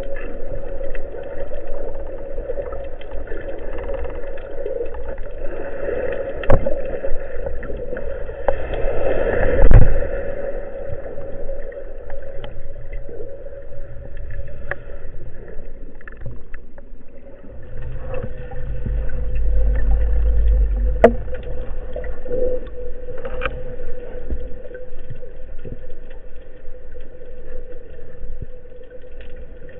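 Muffled underwater sound picked up through a camera's waterproof housing while freediving: a steady low hum and rumble with scattered clicks. There is a loud knock about ten seconds in, and a deeper rumble swells around the middle.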